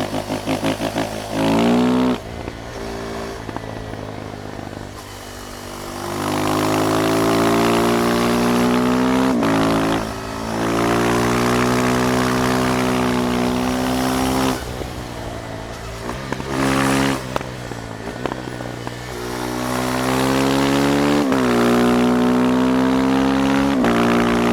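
KTM Duke 390's single-cylinder engine on a ride. It accelerates through the gears, its pitch climbing and dropping at each upshift. In between, the throttle is closed a few times, and there is a short blip of revs just after the middle.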